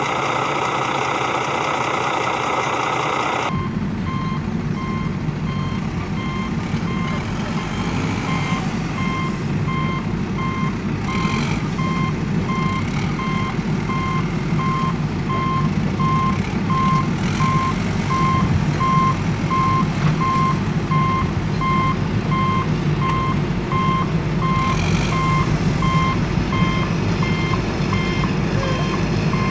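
A truck engine running steadily with a reversing alarm beeping at even intervals. About three seconds in, this replaces a different engine sound that cuts off suddenly.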